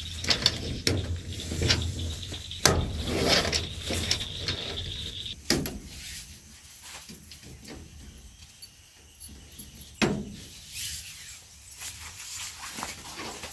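Mosquito netting being hung on a gazebo frame: fabric rustling with scattered clicks and knocks, the sharpest about two and a half seconds in and about ten seconds in. It grows quieter after the first half.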